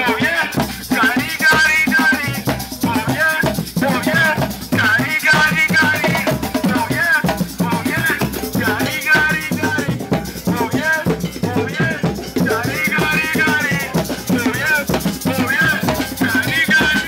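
Music with drums and rattling, shaker-like percussion, over a melody line that bends in pitch.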